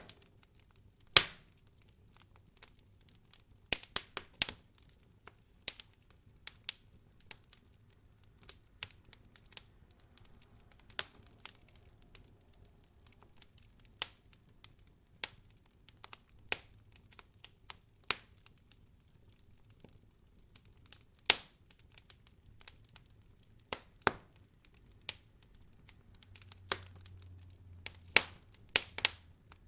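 Campfire firewood burning, with sharp crackles and pops at irregular intervals over a quiet background.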